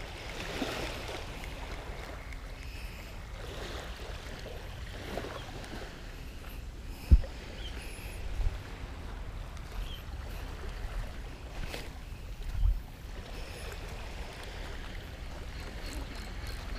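Steady low rumble of wind on the microphone, broken by three dull knocks, the sharpest about seven seconds in.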